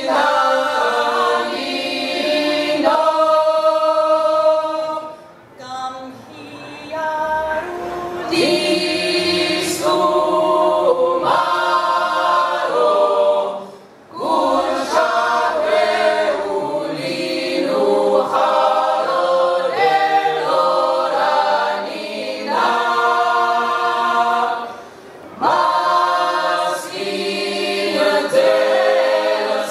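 Mixed choir of men's and women's voices singing a Georgian polyphonic table song a cappella, holding sustained chords in long phrases, with three short breaks for breath between phrases.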